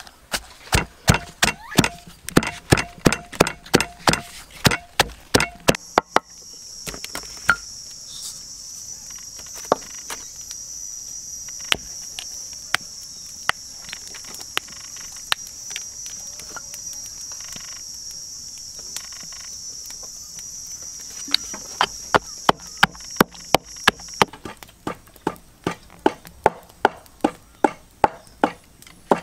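Wooden pestle pounding herbs in a wooden mortar, sharp, even strikes about three a second. The pounding stops for most of the middle, where a steady high-pitched insect drone runs with only a few light knocks, then the strikes start again near the end.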